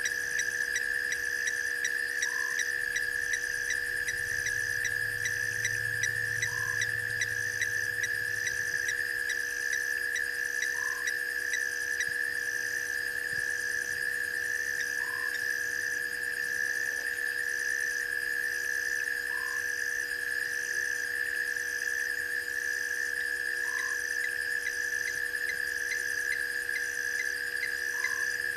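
Night chorus of frogs and insects at a waterhole: a steady, high, rapidly pulsing trill with a higher chirp pulsing evenly over it. A short lower call repeats about every four seconds.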